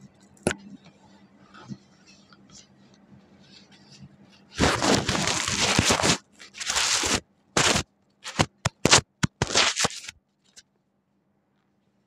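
Faint scratching of a disposable razor shaving an armpit, then, from about four and a half seconds in, loud rustling and crackling bursts of a paper tissue being rubbed over the shaved skin, two long ones followed by several short, sharp ones.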